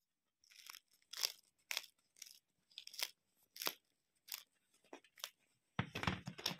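Crisp crust of a baked baguette crackling as fingers press and squeeze it: short, dry crackles about twice a second, turning into a denser, fuller crunch near the end.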